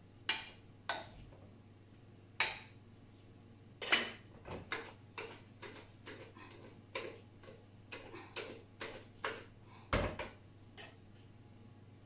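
A metal utensil clinking and knocking against a cooking pot while stirring, about twenty sharp, irregular taps that come closer together in the middle.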